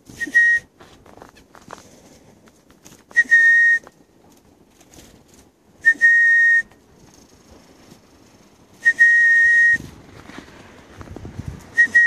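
A person whistling one steady note, short and breathy, repeated five times at about three-second intervals, each held for under a second.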